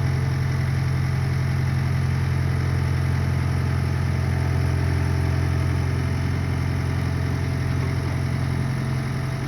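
Skid steer engine running steadily, a constant low drone with no change in speed.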